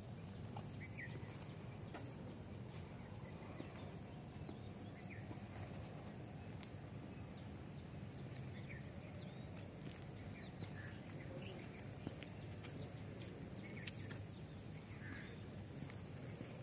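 Steady high-pitched buzzing of insects, with scattered faint bird chirps over a low background rumble and a few soft clicks.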